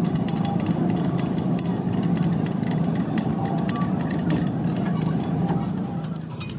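Steady low hum of an idling engine, with many light metallic clicks of a spanner working the bolts on a truck differential's pinion flange. The hum drops briefly near the end.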